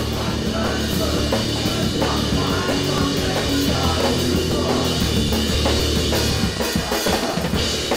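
Rock band playing loud, the drum kit to the fore.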